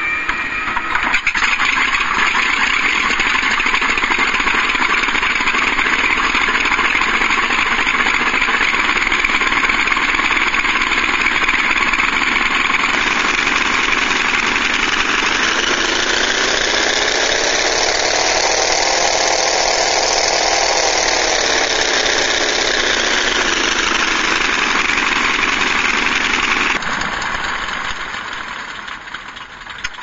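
WWII warplane piston-engine sound effect played by an RC sound unit through two small loudspeakers: the engine runs steadily, its pitch rises and then falls back over several seconds past the middle, and near the end it cuts down and fades away.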